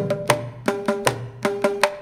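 A tuned hand drum played solo in a quick, even rhythm. The sharp strokes come in small groups, each ringing at a steady pitch, with a deep bass tone under some strokes.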